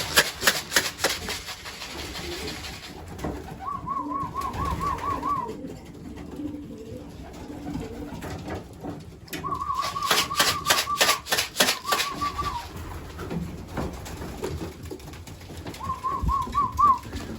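Racing pigeons in a loft: two flurries of wing flapping, one at the start and another about ten seconds in, with cooing and a short warbling call repeated three times.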